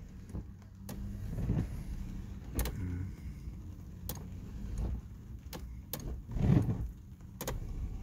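Scattered sharp clicks and knocks, about six of them, with low rumbling handling noise about a second and a half in and again near the end, inside a car's cabin.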